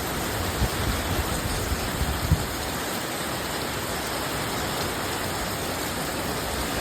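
Hurricane rain and wind: a steady rushing hiss of heavy rain, with a few low thumps in the first couple of seconds.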